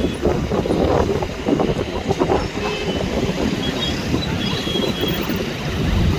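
Wind buffeting the microphone, a loud, gusty low rumble that flutters irregularly throughout.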